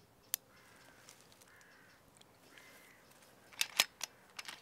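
Crows cawing faintly in the distance, four calls over about three seconds. A single sharp click comes just after the start, and a quick run of loud clicks about three and a half seconds in.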